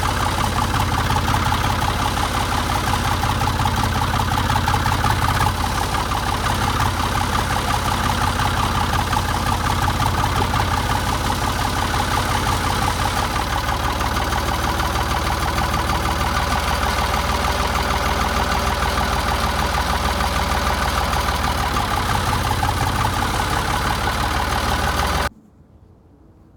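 An engine running steadily, its low tone shifting slightly about halfway through; the sound cuts off abruptly near the end.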